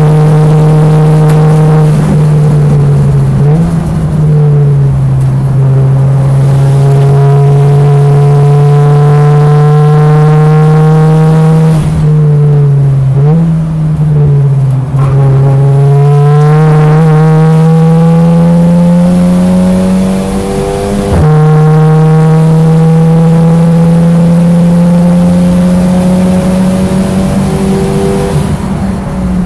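Saloon racing car's engine running hard under load. Its pitch climbs slowly through each gear, with short dips at gear changes about 3.5, 13, 15 and 21 seconds in.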